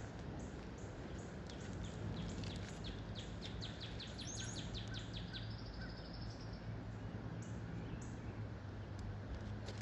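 Songbirds chirping: a quick run of short high chirps, about five a second, over a few seconds in the middle, with a brief higher trill alongside. Underneath is a steady low background hum and noise.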